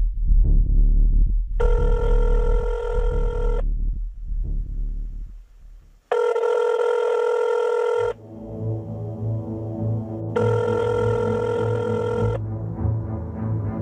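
A telephone ringing tone repeating over dark background music: three rings of about two seconds each, with pauses of about two and a half seconds between them. It is a call ringing out with no answer.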